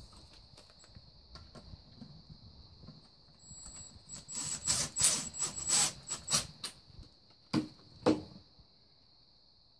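Cordless drill-driver run in a series of short spurts with a thin high motor whine, driving screws into an ATV transmission case, followed by two sharp knocks about half a second apart.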